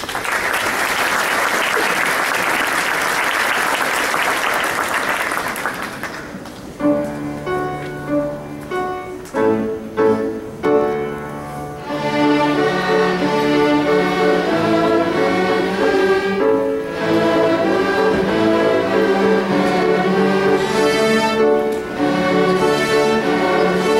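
Audience applause for about six seconds, then a school string orchestra of violins and cellos starts a piece: a few separate short chords, then continuous bowed playing from about halfway through.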